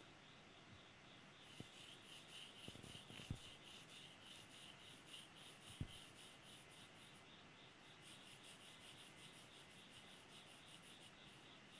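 Faint scratching of a pencil on drawing paper, in quick repeated short strokes several times a second, as lines are sketched. A few soft knocks come in the first six seconds.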